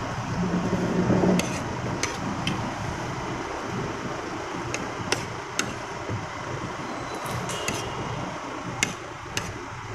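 Light, scattered clinks of a spoon against a plate and dishes as a meal is eaten, about ten over several seconds, over a steady background hum.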